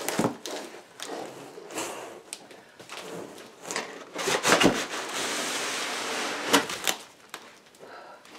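A large cardboard box being handled as a bubble-wrapped solar panel is worked out of it: scattered knocks and bumps, a cluster of louder thuds just after four seconds, then a steady scraping rush of cardboard and packing sliding against each other for about two seconds, with a couple more knocks near its end.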